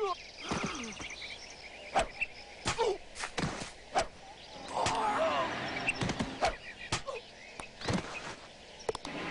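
A run of scattered sharp knocks and thuds, mixed with short gliding pitched calls near the start and a burst of warbling calls about five seconds in.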